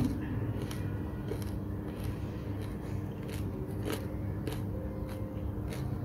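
Crisp fried samosa pastry crunching in an even rhythm, about three crunches every two seconds, over a low steady hum.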